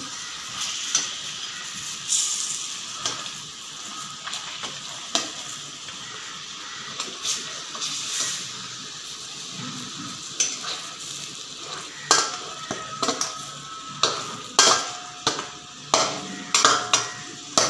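Goat brains simmering and sizzling steadily in masala gravy in a stainless steel pan, while a perforated metal skimmer scrapes and clinks against the pan as they are turned over. The clinks come more often in the second half, a few of them leaving a short metallic ring.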